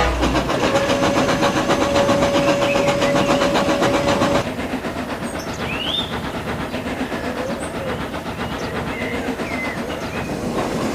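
Steam locomotive running fast, with rapid even chuffing and rail clatter. A steady tone sounds over it until about four seconds in, when the sound drops suddenly in level and the chuffing carries on more quietly.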